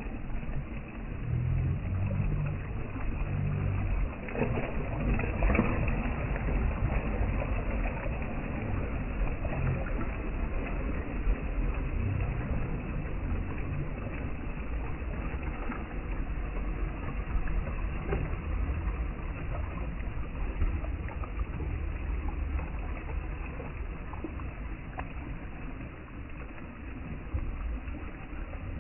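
Ocean waves washing in, a continuous rushing noise with a heavy low rumble underneath.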